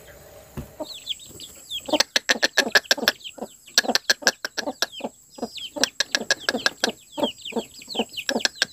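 Domestic hen clucking repeatedly while her young chicks peep in short, high, falling cheeps, starting about a second in and running on thick and fast.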